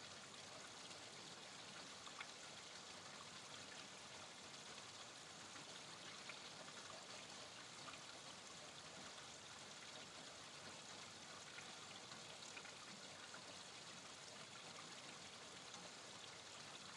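Steady rain falling: a faint, even hiss with scattered ticks of single drops.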